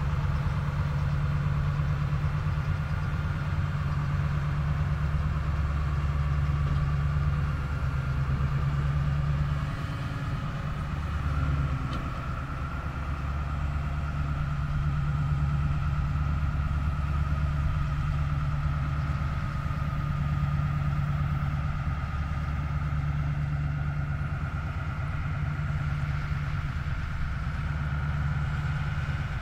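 The engine of a McKeen motor car running steadily, a low even hum, as the railcar moves slowly along the track, with a faint high whine.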